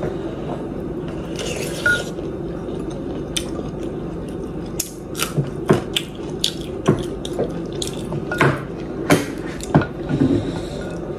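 Close-up wet eating sounds of spicy chickpea and instant-noodle soup being stirred and slurped with a wooden spoon in a glass bowl. From about three seconds in come many sharp clicks and smacks, over a steady low hum.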